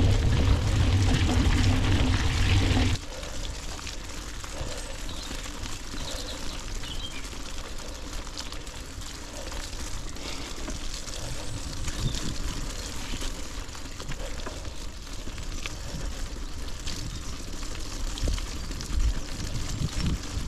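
Mountain bike rolling on Maxxis XC race tyres through a wet, muddy trail: a steady wash of tyre and mud noise. It is loud and deep for the first three seconds, then drops suddenly to a quieter, even wash.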